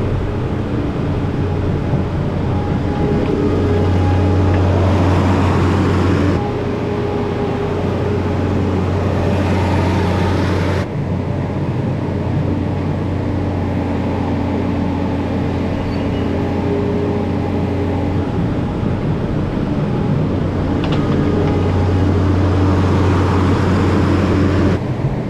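Skid loader engine running steadily under work, swelling louder a few times, with a rushing hiss for a stretch early on while the stalls are scraped out.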